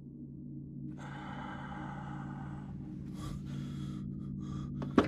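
A low held drone with several steady tones, a hiss for about two seconds, then a man's heavy breaths and gasps. A sharp click comes near the end.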